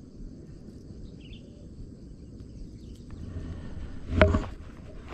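Steady low outdoor rumble with small handling clicks, and one brief loud bump about four seconds in.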